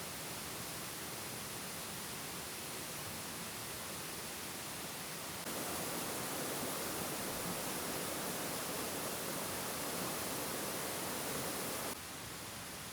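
Steady rushing noise of water, the forest's rain or stream, with no distinct events. It steps up in level about five seconds in and drops back near the end.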